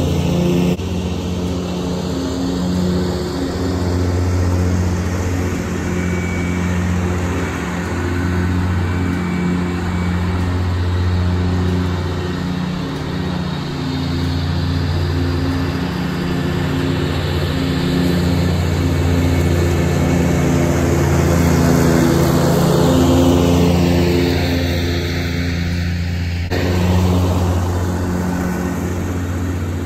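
Scag Turf Tiger zero-turn mower's Caterpillar diesel engine running steadily while mowing, getting louder toward the end as the mower drives close by.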